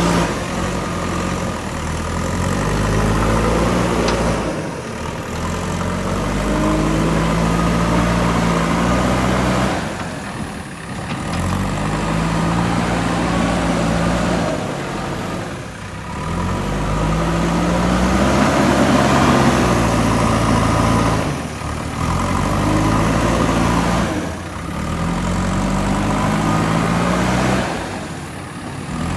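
JCB 3DX backhoe loader's diesel engine working under load, its pitch rising and falling over and over, with brief drops in level every few seconds.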